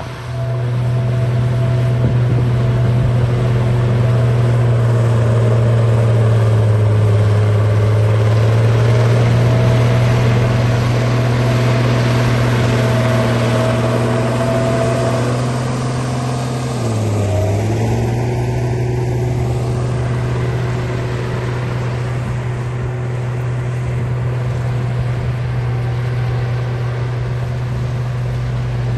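Bulldozer engine running at a steady pitch, dipping briefly and recovering about two-thirds of the way through.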